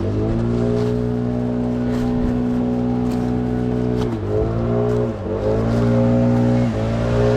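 An engine running at a steady speed, its pitch sagging briefly a few times, about four and five seconds in and again near seven seconds.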